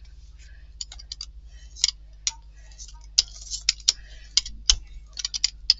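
Hand brayer rolled over a magazine page laid on a paint-covered gel printing plate, giving irregular sharp clicks and crackles of roller and paper, with one dull knock near the end.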